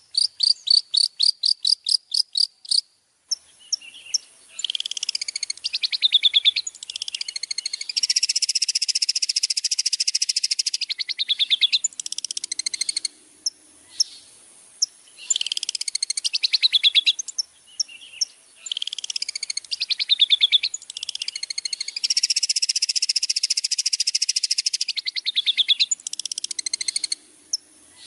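Recorded songbird song played as a masteran tutor track for cendet (long-tailed shrikes). It opens with a rapid run of repeated sharp notes, about six a second, then goes into chattering phrases and long buzzy trills over a steady very high ringing. The same sequence repeats about every 14 seconds.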